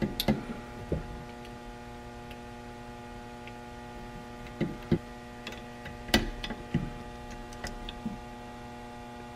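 Steady electrical mains hum, with scattered short metallic clicks from a ratcheting torque wrench and socket snugging the engine's crankcase bolts, the loudest about five and six seconds in.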